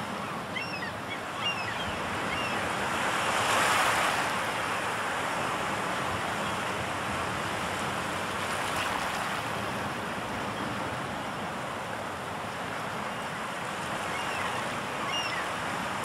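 Waves washing onto a shore, a steady surf noise that swells as a wave breaks about four seconds in. A few faint short bird calls come near the start and again near the end.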